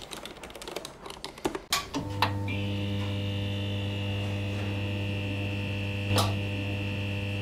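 Soft key clacks of a low-noise red-switch mechanical keyboard being typed on for about two seconds. Then a sudden steady electric buzzing hum, a neon-sign buzz effect, with a sharp click as it starts and another about six seconds in.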